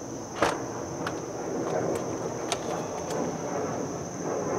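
Tesla Model X falcon wing door unlatching with a sharp click about half a second in, then its motor drive lifting the door, with a few fainter ticks along the way.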